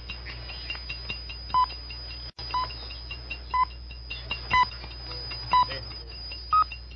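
Swiss Broadcasting Corporation shortwave time signal: a watch ticking quickly, with six short beeps a second apart, five at one pitch and the last one higher, which marks the exact time. A steady high whistle and hiss of shortwave reception run underneath.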